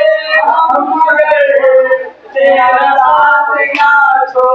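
Singing: a voice holding and sliding long notes, with a short break about two seconds in.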